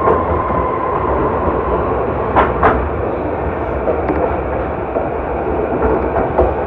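Shinkansen bullet train running: a steady rumbling noise with a faint tone that fades out, and two sharp clicks close together about two and a half seconds in.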